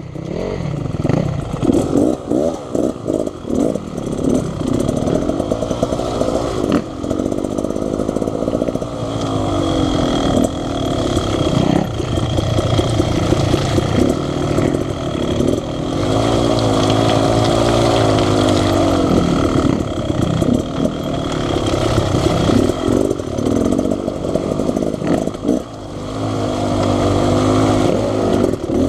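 Two-stroke dirt bike engine being ridden on a trail, its pitch rising and falling as the throttle is opened and rolled off, with brief dips where the rider lets off.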